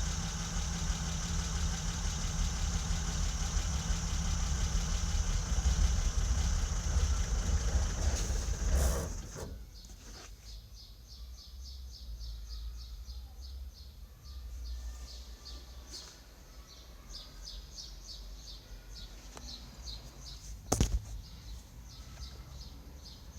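BMW E30's M20B27 straight-six engine running steadily, then cutting out abruptly about nine seconds in, the kind of sudden stall a bad fuel pump connector causes. Afterwards, quieter high-pitched ticking repeats several times a second, with a sharp click near the end.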